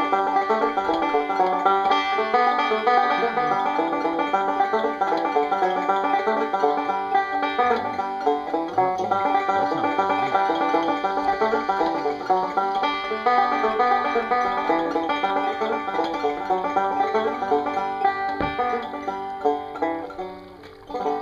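Background bluegrass-style instrumental music led by a fast-picked banjo, fading out at the end.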